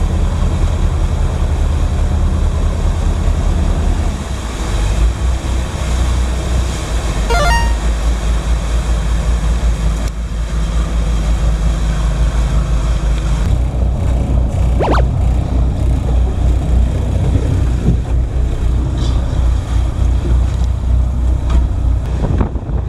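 Boat engine running steadily under way, a deep continuous drone with the rush of sea and wind over it. A couple of short high squeaks come through, about a third of the way in and again past the middle.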